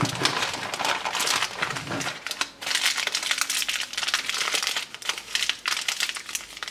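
Ration packaging crinkling and rustling as it is handled: first the thin clear plastic bag, then a foil sachet, in several bursts with short breaks.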